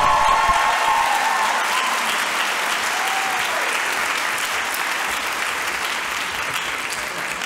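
Audience applauding a speaker taking the stage, with a few whoops in the first seconds, the clapping slowly fading toward the end.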